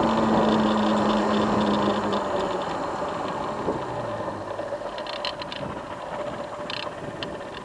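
Motorcycle engine slowing down: its steady note drops and the sound fades as the bike comes off speed, with light rattling ticks in the second half.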